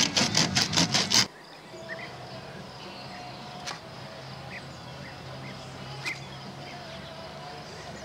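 Music with a regular plucked beat cuts off about a second in. It leaves a quiet background with a low steady hum, scattered faint chirps and a couple of light clicks.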